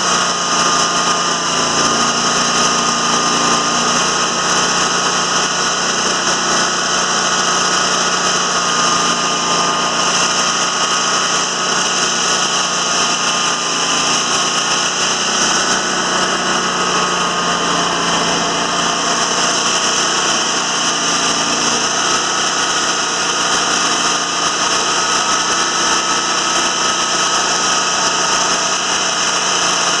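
Timberking 2000 band sawmill's engine running steadily, with a high wavering whine over it. A lower hum comes and goes every few seconds as the hydraulic levers are worked.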